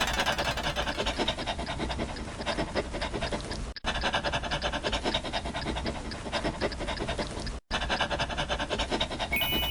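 A dog panting quickly in short, even breaths. The recording repeats, with a brief break about every four seconds.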